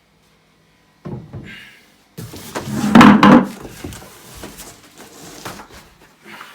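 Evolution Aqua Easypod pond filter being handled and lifted out of its box: knocks, scrapes and rustling of packaging, loudest about three seconds in.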